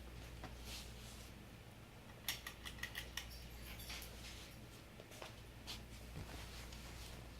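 SMC F52 ceiling fan's large UFO-style motor running in reverse with a steady low hum; the fan is sluggish, which the owner puts down to a capacitor it may need. A run of light metallic clicks and rattles comes about two to three seconds in, with a few more later.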